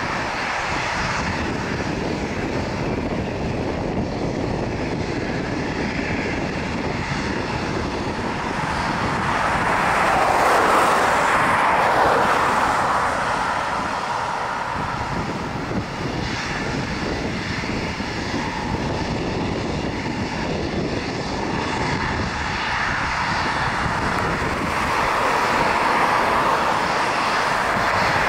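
Boeing 737-800's CFM56-7B jet engines running at taxi power, a steady rushing drone with a faint high whine. It swells louder about a third of the way in and again near the end.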